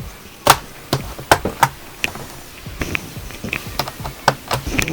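Sharp, irregular plastic clicks and taps, about eight in a few seconds: the ThinkPad Edge E530's cover being set in place and pressed or snapped down.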